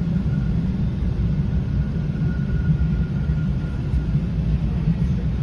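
Bombardier T1 subway car running along a station platform, heard from inside the car: a steady low rumble with a faint high whine.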